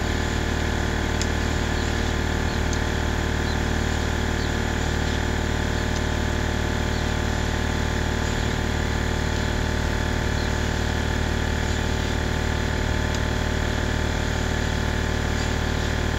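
A steady, even mechanical drone from an engine or motor running at a constant speed, with a low hum, and a few faint ticks over it.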